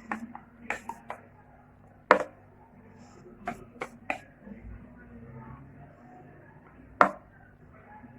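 Sharp knocks and taps of kitchen utensils against cookware, about eight separate strikes, the loudest about two seconds in and again near the end.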